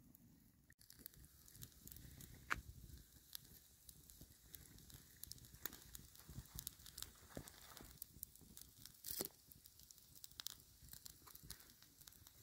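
Wood campfire crackling faintly, with scattered sharp snaps and pops from the burning logs and embers. One louder snap comes about two and a half seconds in.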